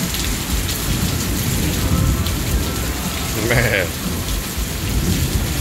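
Heavy rain pouring down in a thunderstorm, with a steady low rumble of thunder underneath.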